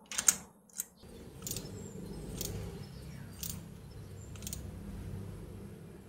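Sharp metallic clicks of hand tools used on a spark plug, two close together at the start and then about one a second, over a steady low hum that starts about a second in.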